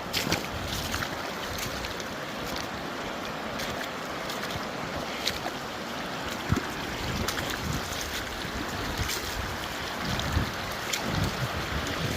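Shallow river rushing steadily over rocks, with wind on the microphone and a few sharp knocks scattered through.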